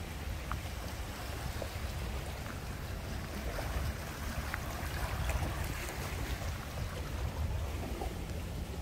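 Wind buffeting the microphone: a steady, uneven low rumble with a hiss over it and a few faint short ticks.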